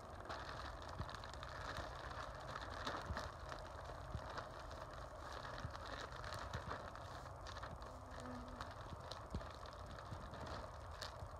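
Plastic hive wrap rustling and crinkling as it is pulled down over beehives and tucked in, with a run of small crackles.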